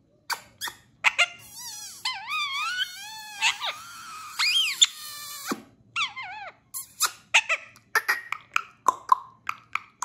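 Indian ringneck parrot chattering: a few seconds of warbling whistled notes that rise and fall, then a string of short, sharp squeaks, two or three a second.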